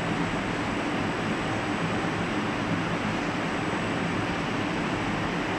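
Glass screen-printing machine and roller conveyor line running: a steady mechanical hum with a broad hiss over it.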